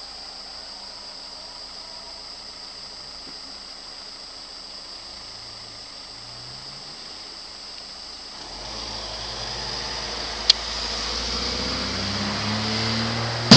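Steady high-pitched trill of crickets. From about two-thirds of the way in, a low rumbling noise builds up beneath it, with a sharp click a little later and a loud crack at the very end.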